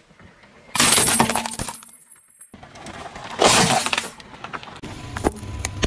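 A car tyre crushes a plastic toy tambourine: a crunch of cracking plastic with its metal jingles rattling and ringing for about a second. After a short silent gap, a second crush about three and a half seconds in, glass splintering as a small glass-topped plastic case breaks under the tyre, then a few small clicks near the end.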